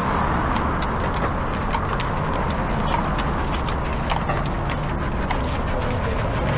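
Horse's hooves clip-clopping on the road as a horse-drawn carriage passes, with sharp, irregular hoof strikes over a steady low hum of city traffic.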